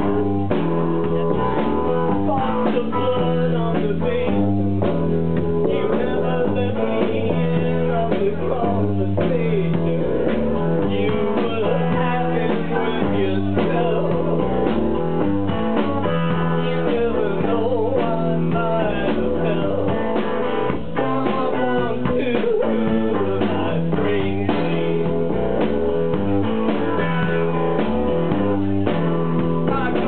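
Live rock band playing: an electric guitar leads over bass and a drum kit in a steady groove, recorded from the audience in a small club.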